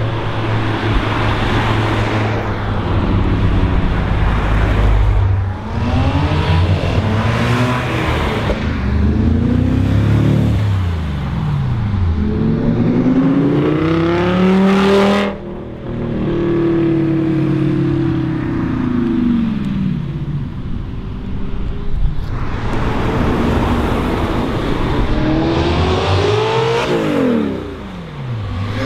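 Audi cars driving past one after another, their engines accelerating. Each car's engine note rises as it pulls up and drops in pitch as it goes by, with the loudest pass about halfway through.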